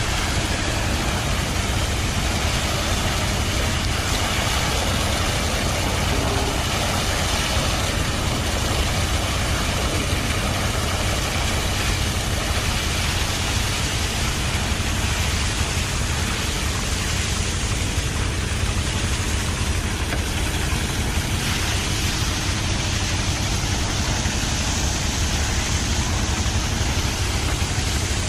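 Steady run of an engine-driven water pump with powerful hose jets hissing and splashing into thick river silt, washing the mud away. A low engine rumble sits under the water noise, which does not let up.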